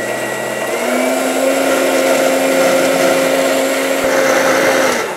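Countertop blender puréeing hot asparagus soup, its motor running steadily. Its pitch steps up about a second in, and it switches off just before the end.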